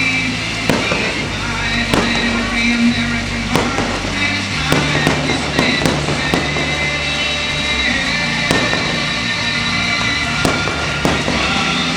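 Fireworks bursting in the sky, about ten sharp bangs at uneven intervals, over loud music playing along with the show.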